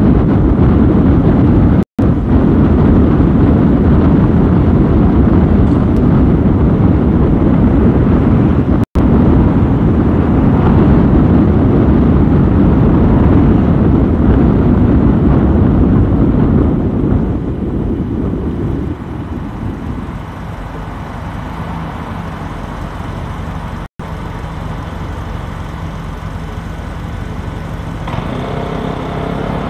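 Steady road and wind noise of a car driving in city traffic, becoming noticeably quieter about two-thirds of the way through. The sound cuts out for an instant three times.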